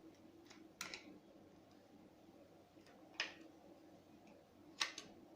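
Faint clicks and taps of small mechanism parts being handled: a pair of sharp clicks about a second in, one at about three seconds, and another pair near the end, over a low steady hum.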